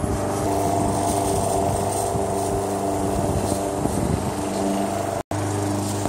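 Outboard motor idling steadily on a boat out of the water on its trailer, at an even engine speed with no revving. The sound cuts out for an instant about five seconds in.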